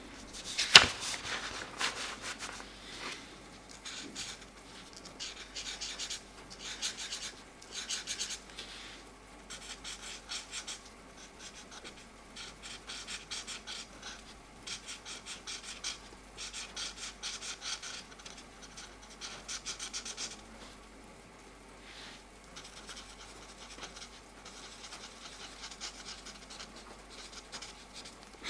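Mancola felt-tip markers scribbling on colouring-book paper: patches of quick back-and-forth strokes, each lasting a second or two, with a sharp click about a second in.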